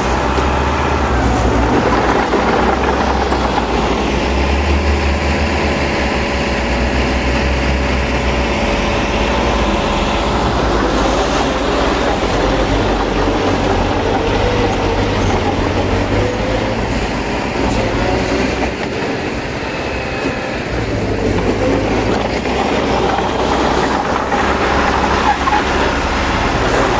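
Heavy diesel engines running steadily: first a small crawler bulldozer's, then a loaded Hino dump truck's as its tipper bed starts to rise.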